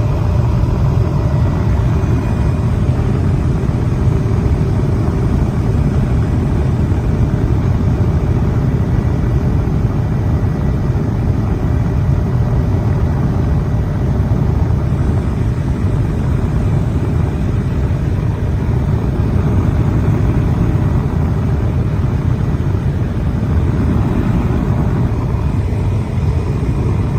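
Steady, loud low rumble of an aircraft in flight, with faint steady whining tones over it.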